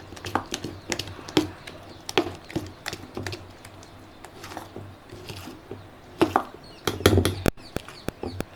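Light, irregular clicks and knocks of kitchen utensils, a few a second, with a louder cluster of knocks near the end.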